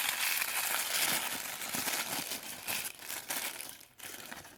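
Crinkling and rustling of plastic packaging as the doll's small accessory box is opened and its contents unwrapped, steady crackling that fades for a moment near the end.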